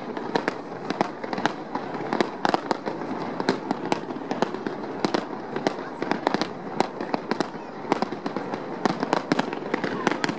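Fireworks display: sharp bangs and crackles of bursting shells in quick, irregular succession, several a second.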